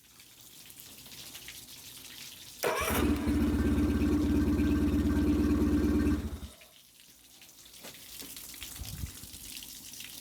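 2006 Nissan 15 hp four-stroke two-cylinder outboard motor catching suddenly about two and a half seconds in and running steadily for about three and a half seconds before it stops.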